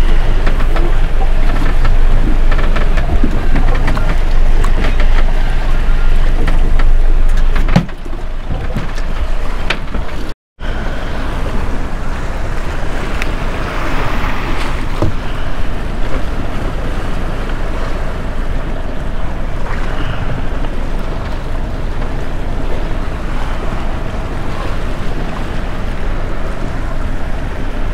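Wind rushing over the microphone with water lapping around a small boat. It is loudest and heaviest for the first eight seconds, cuts out for a moment about ten seconds in, then goes on more evenly.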